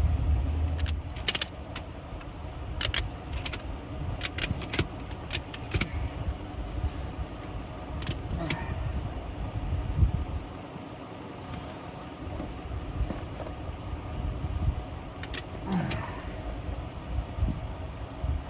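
Ratchet strap being cranked tight around a tractor tire to push the bead toward the rim: runs of sharp metallic clicks, a few at a time, with a steady low mechanical hum underneath.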